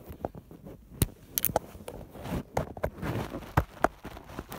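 Sharp plastic clicks and knocks, about seven at uneven intervals, as a metal bearing is pushed and pressed into a plastic fidget spinner frame.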